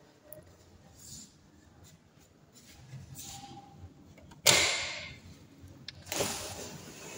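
A sliding patio door running along its track, two quick slides about a second and a half apart, each starting suddenly and fading out over about a second.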